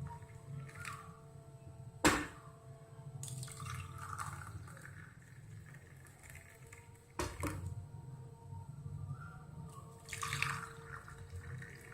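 Hot ginger milk tea being poured: liquid splashing and trickling in two spells, with two sharp clinks about five seconds apart, the louder one about two seconds in.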